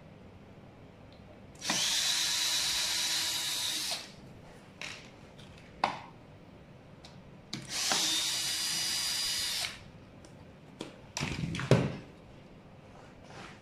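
Handheld cordless drill-driver run twice on the deck screws of an electric scooter, each run a steady whine of about two seconds. A few sharp clicks fall between the runs, and a short, loud clatter comes near the end.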